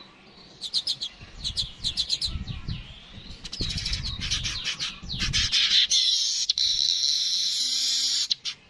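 Yellow-headed weaver (manyar) singing: a run of quick high chips, then a fast chatter, ending in a long buzzy wheeze from about six seconds in that cuts off suddenly near the end.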